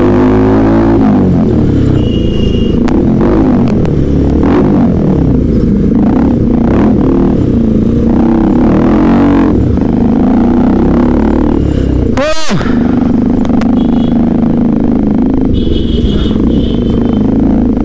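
Motorcycle engines running on the move, revs rising and falling as the bikes ride on. About twelve seconds in there is a brief whooshing sweep.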